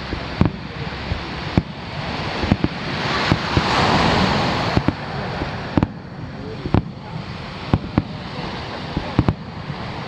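Aerial firework shells bursting over the sea: a string of sharp booms at irregular intervals. Around the middle, a rushing hiss of surf breaking on the beach swells and fades.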